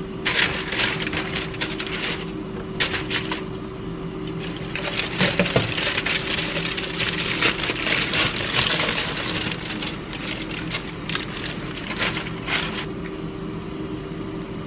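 Aluminium foil crinkling and crackling in bursts as it is lifted, bunched and folded, with a steady low hum underneath.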